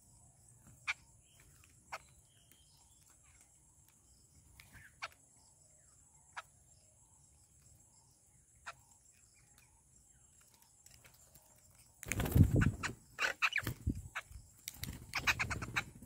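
Birds feeding on a hard ledge: a few isolated sharp pecking taps, then about twelve seconds in a loud flurry of harsh bird chatter and wing flutter lasting to the end, over a steady high insect buzz.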